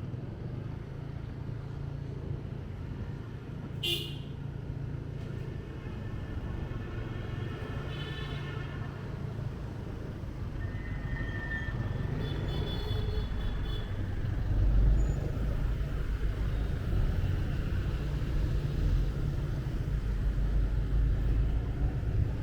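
City street traffic heard from a moving motorbike: a steady engine and road rumble that grows louder in the second half, with several short horn beeps over it.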